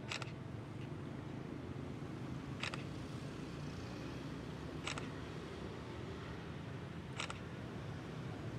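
Camera-shutter clicks from the phone on the drone's remote controller, one about every two and a quarter seconds, each marking a photo taken by the DJI Air 2S on its automated mapping run. A low steady hum lies underneath.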